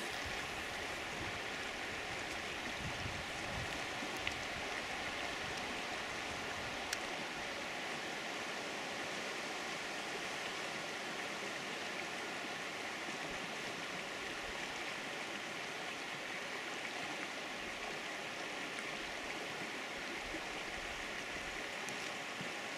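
Steady rushing of stream water, an even hiss that does not change.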